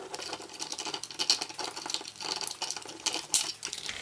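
Rapid, irregular plastic clicks and rattles of hands fitting a one-cell lithium polymer battery into a small plastic quadcopter and handling its body.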